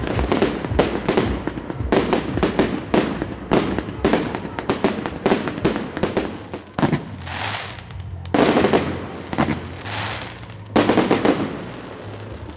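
A ground-launched fireworks battery firing: a rapid string of sharp cracks and pops for the first six seconds or so, then two loud hissing bursts that start suddenly about eight and about eleven seconds in.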